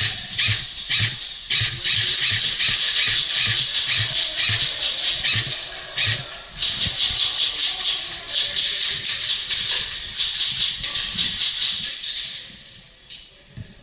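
Footsteps crunching through dry leaves and brush at a walking pace, about two steps a second, with steady rustling between steps; it fades near the end.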